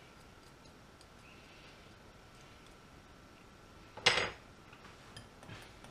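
A small whisk working batter in a glass bowl gives a few faint clinks. About four seconds in comes a single sharp clatter of a metal kitchen utensil against the bowl or worktop, followed by a few light clicks.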